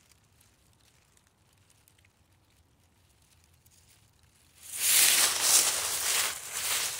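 Near silence at first; about four and a half seconds in, a loud, uneven rustling and crunching of dry fallen leaves begins as a beagle noses into the leaf pile.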